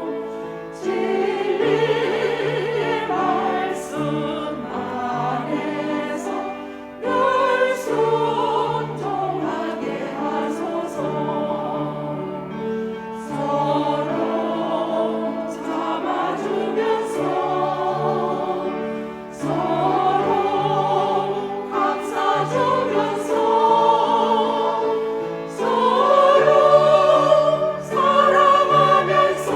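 Church choir singing a hymn in several parts, phrase after phrase with vibrato, swelling loudest near the end.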